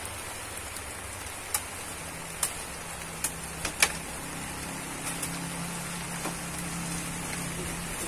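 Light rain falling steadily, with single drops striking banana leaves as sharp, scattered ticks. A low steady hum joins in about two seconds in.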